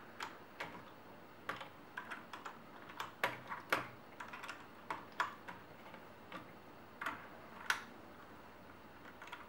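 Keycaps being pushed onto the Cherry MX Red switches of a Corsair K60 mechanical keyboard: faint, sharp plastic clicks at an uneven pace, about two a second.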